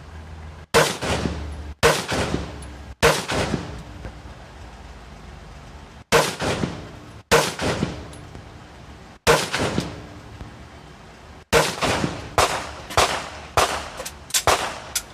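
Gunshots fired in a string. Three shots come about a second apart, then single shots every one to two seconds, then a quicker run of about seven shots near the end. Each shot has a short ringing tail.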